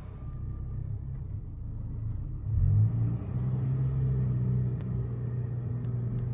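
An engine running with a low, steady rumble. About two and a half seconds in it revs up briefly, then holds at a higher, steady hum.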